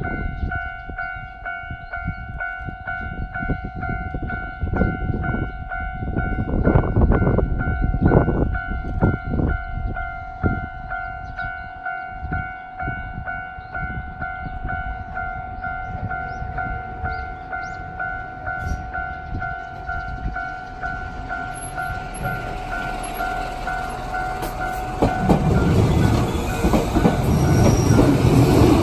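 Japanese level-crossing warning bell of the standard electronic type, ringing in even pulses of about two a second. Near the end the bell gives way to the louder, rising running noise of a passing train.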